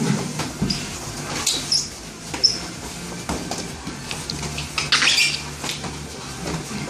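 Kickboxing sparring: several short, high squeaks of sneakers on the training mats, among scattered thuds of gloved punches and kicks landing.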